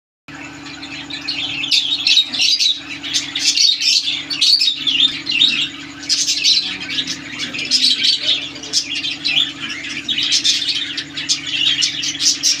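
A group of caged lovebirds chattering: a dense, continuous stream of rapid high chirps and squeaks that rises and falls in waves. A steady low hum runs underneath.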